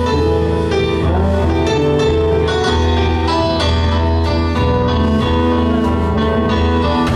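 Live progressive rock band playing an instrumental passage: Yamaha Motif keyboard, electric bass, electric guitar and drum kit, with held keyboard notes over a steady beat.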